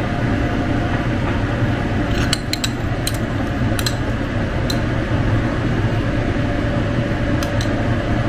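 Steady low mechanical hum, with several light clicks and taps of a utensil against a cooking pot scattered through the middle and near the end.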